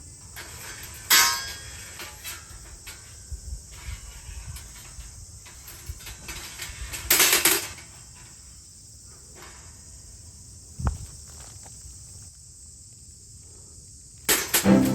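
A few short metallic clinks and knocks, the loudest a cluster about seven seconds in, over a steady high hiss.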